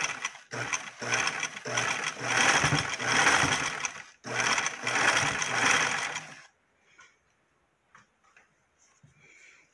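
Small electric sewing machine, run by a foot-pedal motor, stitching through fabric in four runs with brief pauses between them. It stops about six and a half seconds in.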